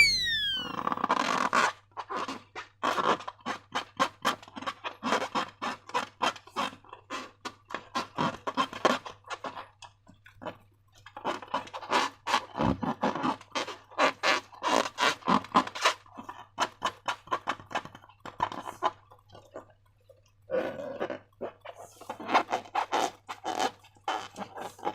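Slime being squished and worked by hand, giving rapid, irregular wet crackles and clicks in bursts, with two short pauses.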